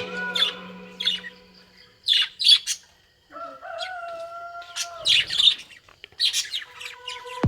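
Lovebirds chirping in clusters of short, sharp, high calls, with a brief held tone in the middle.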